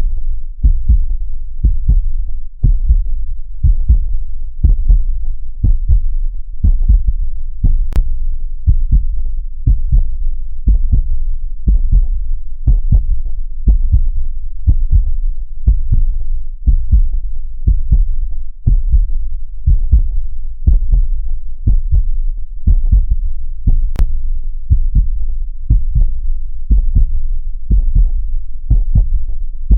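Heartbeat sound for soothing a baby: deep lub-dub thumps in pairs, repeating at a steady even rhythm like a heartbeat heard from inside the womb.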